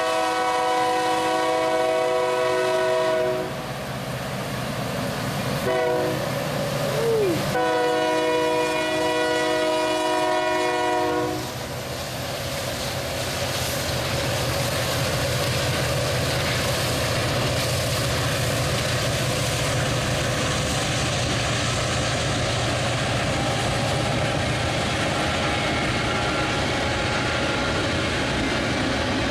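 Lead locomotive's multi-chime air horn, on NS 7330, a rebuilt EMD SD90MAC, finishes the grade-crossing signal: the end of a long blast, then a short toot, then a final long blast. After the horn the train rumbles steadily past with locomotive engine noise and wheels clacking on the rails.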